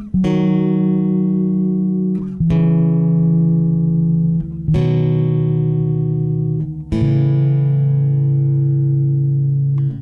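Background music: slow plucked-string instrumental, each sustained chord giving way to a new one about every two and a half seconds.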